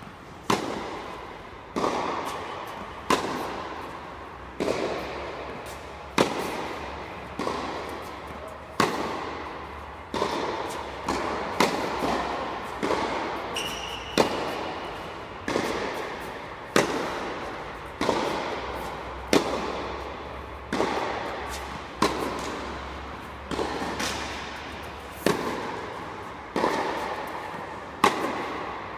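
Tennis ball struck back and forth in a rally on an indoor court. Sharp racket hits come about every one and a half seconds, each ringing out in the echo of the hall.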